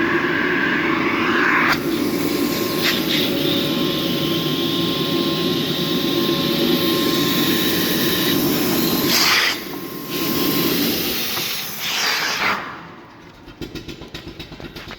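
Nilfisk CTS22 industrial vacuum cleaner's side-channel blower running with a loud, steady rush of air and a thin whistle. The sound shifts abruptly a couple of times, and near the end it drops away and fades with a fluttering as the blower runs down.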